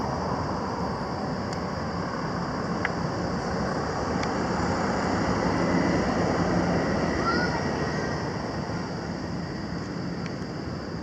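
Steady rushing outdoor background noise, with a couple of faint short chirps about seven seconds in.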